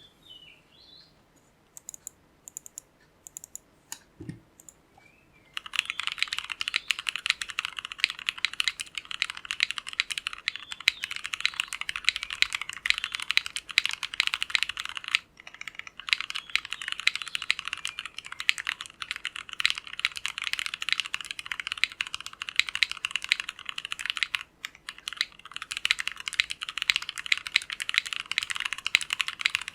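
Ozma60 mechanical keyboard with Tecsee Jadeite switches on a polycarbonate plate, tape-modded, being typed on: a few scattered keystrokes, then fast continuous typing from about five seconds in, with two brief pauses.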